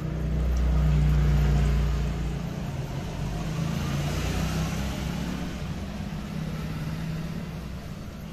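A motor vehicle's engine running close by, with a steady low hum. It is loudest for the first two seconds or so, then a rushing noise swells and fades away.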